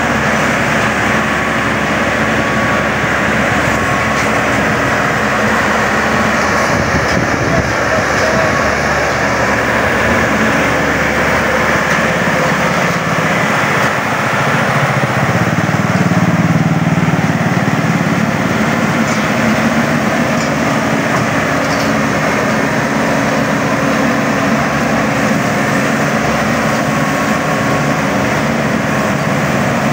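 Crawler rice combine harvester's diesel engine running steadily as the machine drives on its tracks, growing a little louder for a couple of seconds midway.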